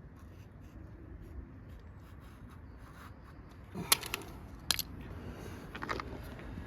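Quiet rubbing and scraping of hand work on gasket paper at a workbench, with two sharp clicks a little under a second apart near the middle and a few fainter ones near the end.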